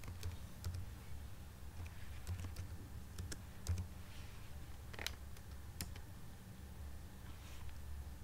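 Scattered keystrokes on a computer keyboard as a terminal command is typed and entered, a few separate taps spread unevenly over a steady low hum.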